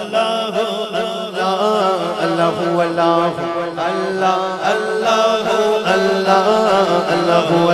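Male naat reciter singing a long, wordless melismatic passage with gliding, ornamented pitch, over a low steady drone of background voices repeating 'Allahu'.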